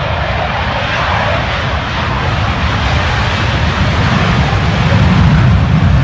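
Loud, steady aircraft engine noise: a rushing roar over a heavy low rumble.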